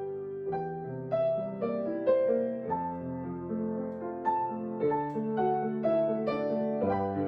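Solo piano playing a slow, gentle piece of held chords and melody notes, a new note struck about every half second.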